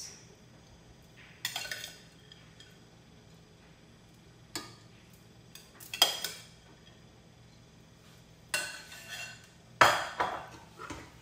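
Metal serving spoon clinking against a glass bowl and the cooking pot while rice is scooped and spread: about five separate clinks with quiet between, the loudest near the end.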